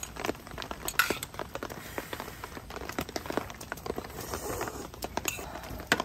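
Rain pattering irregularly on the tent, a dense scatter of small taps, with light metal clinks from a small cooking pot and chopsticks. A sharper clack comes near the end as the pot is set down on the table.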